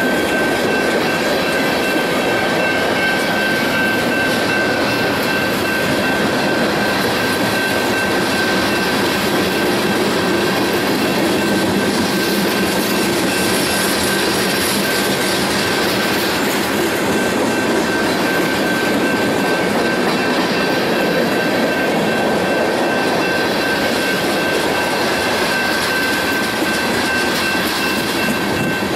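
Freight train cars, covered hoppers and tank cars, rolling past close by, a steady loud rumble and rattle of steel wheels on the rails, with a thin high-pitched squeal held over it.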